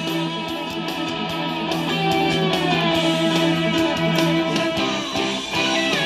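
Background rock music with guitar over a steady beat.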